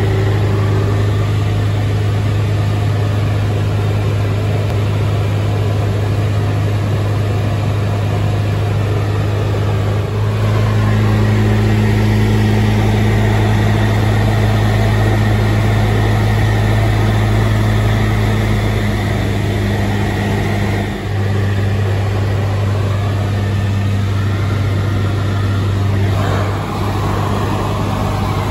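Jabiru J160 light aircraft's four-cylinder Jabiru 2200 engine and propeller droning in cruise, heard inside the cockpit as a steady low hum with airflow noise. The drone steps up a little about ten seconds in and dips briefly twice near the end.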